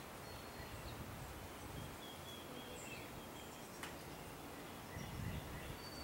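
Faint outdoor ambience with distant songbirds giving short, thin, high whistles and chirps, several times. A single sharp click about four seconds in.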